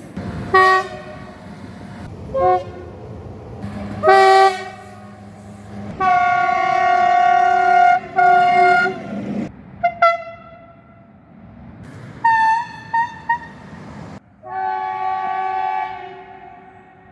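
Train horns blowing in a series of blasts: several short toots, a long blast of about three seconds with a brief break near its end, more short toots, and a final blast of about two seconds.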